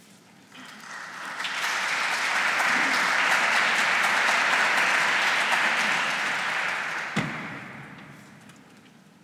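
Audience applauding: it swells in during the first second or two, holds steady, then dies away near the end, with a single thump about seven seconds in.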